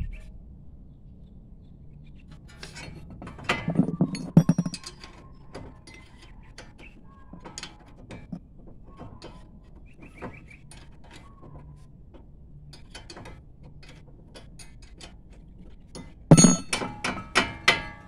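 Steel hand tools (wrench and sockets) clinking and knocking against each other and the concrete floor: a short cluster of clinks about four seconds in, a few faint ticks, then a quick run of loud ringing clinks near the end.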